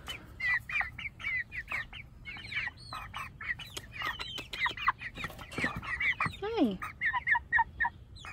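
A flock of white meat-breed broiler chickens crowded at the wire, clucking and peeping in many short calls, several a second; the keeper takes the clamour for the birds wanting feed. About six and a half seconds in, one longer call slides down in pitch.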